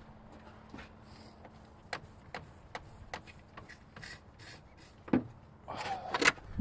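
Hand-operated plastic oil-extractor pump being worked, giving scattered light clicks and knocks, with a louder burst of noise near the end. It is pumping cigarette smoke into the truck's brake booster vacuum line for a vacuum-leak smoke test.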